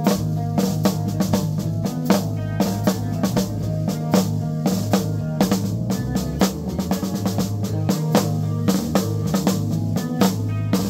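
Full rock drum kit played in a steady beat of bass drum, snare and cymbal hits, with guitars holding low notes beneath it, as a band plays together.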